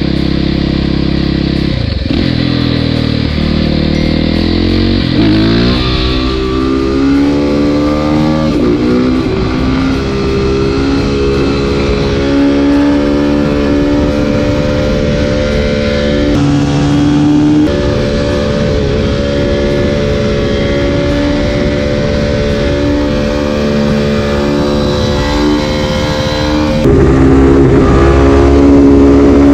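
Dual-sport motorcycle engine revving up through the gears, its pitch climbing in several rising sweeps in the first few seconds. It is then held at high revs through a long wheelie, with a few sudden steps in pitch and a louder stretch near the end.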